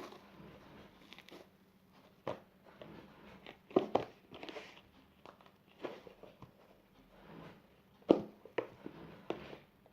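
Hands squeezing and kneading a soft, fluffy shaving-foam slime, with irregular wet squelches and small pops, the loudest about four and eight seconds in.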